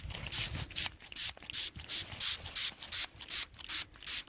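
Handheld spray bottle being pumped, about three quick hissing squirts a second, sprayed on a freshly dug find to clean it.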